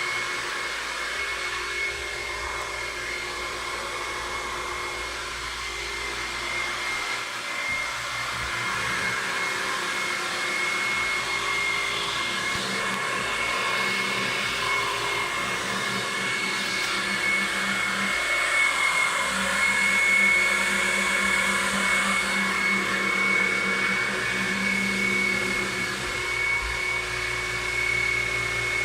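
Carpet-cleaning extraction vacuum running steadily: a rushing suction hiss with a constant high whine.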